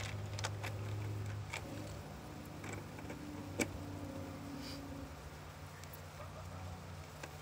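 Light plastic clicks and taps as a floodlight security camera is handled and pressed onto its wall mount, with one sharper click about three and a half seconds in, over a low steady background hum.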